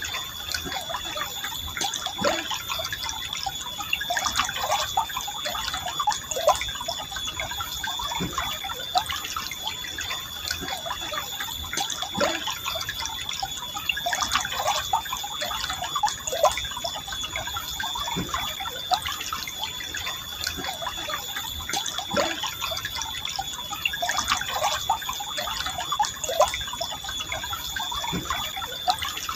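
River water flowing calmly through a forest, trickling steadily with frequent small gurgles and plops.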